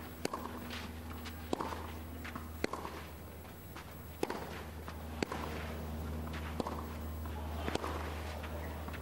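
Tennis racquets striking the ball in a long clay-court rally: seven sharp hits, one about every second and a quarter. Between shots the players' shoes scuff and slide on the clay.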